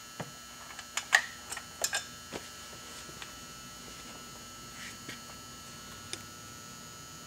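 A few light clicks and knocks in the first two and a half seconds, the loudest about a second in, then only a faint steady hum.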